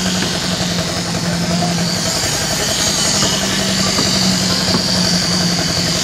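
Concrete needle vibrator running steadily: an engine drone with a high steady whine above it, the whine growing stronger about halfway through.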